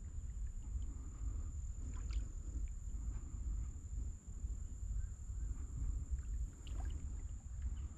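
Small boat moving on a river, with a low fluctuating rumble of wind on the microphone and a few faint knocks about two seconds in and near seven seconds, over a steady high-pitched whine.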